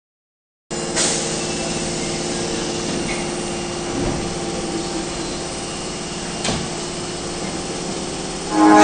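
Osaka Municipal Subway 22 series train standing at a platform: a steady hum and hiss with a few light knocks. Near the end the door-closing chime starts, a loud pitched tone made of several notes at once.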